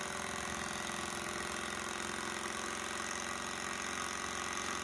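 Bohm HB14 twin-cylinder Stirling (hot-air) engine running steadily, its flywheel, linkages and ball-bearing crank giving a fast, even mechanical clatter like a sewing machine.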